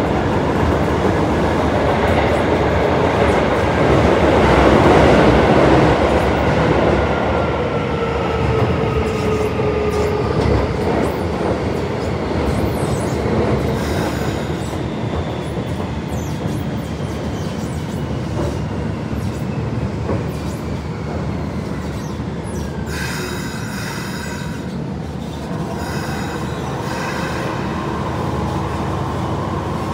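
Keisei 3400 series subway train heard from inside the car, slowing to a stop at a station: the traction motor and gear whine falls steadily in pitch under the rumble of wheels on rail. Brake and wheel noise flares briefly as the train draws to a halt near the end.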